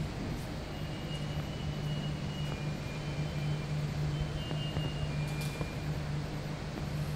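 A steady low mechanical hum, with a few faint, thin high tones that come and go briefly above it.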